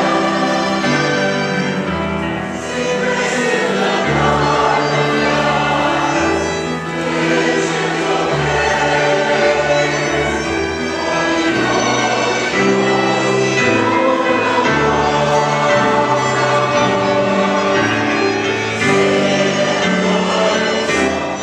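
Church choir singing a hymn.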